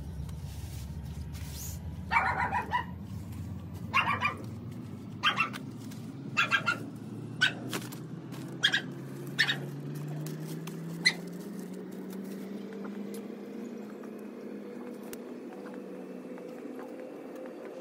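A dog barking, about eight short barks over roughly nine seconds, over a steady low drone that slowly rises in pitch.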